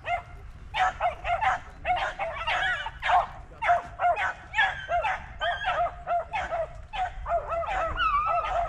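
Beagles giving tongue in quick, repeated high yelps, about three a second, as they run a rabbit's scent trail; near the end the yelps overlap with a longer drawn-out note.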